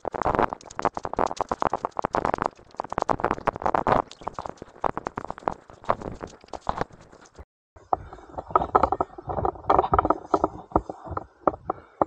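Footsteps crunching along a trail and brushing through scrub, a dense irregular run of crunches, knocks and rustles. About seven and a half seconds in it breaks off briefly, then goes on muffled and duller.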